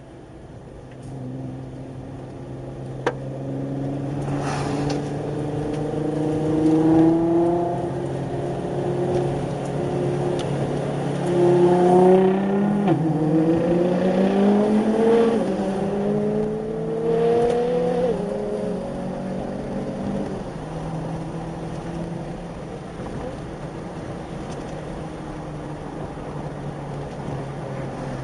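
Car engine accelerating hard through the gears, heard from inside a following car: the revs climb from a few seconds in, drop sharply at upshifts around the middle, then ease off to a steady cruise in the last third.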